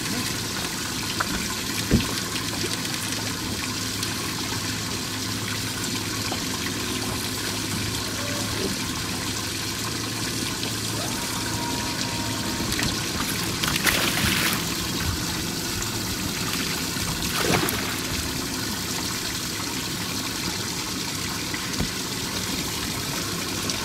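Steady trickling, running water, with a sharp knock about two seconds in and two brief louder splashy surges later on.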